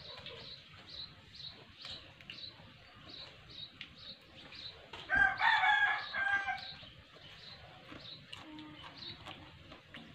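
A rooster crowing once, about five seconds in, for under two seconds, with faint high chirps repeating about twice a second behind it.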